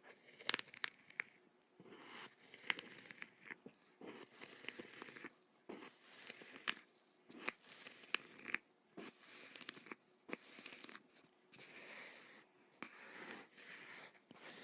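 Kinetic sand being worked in short separate strokes, roughly one a second, some with sharp crackles in them.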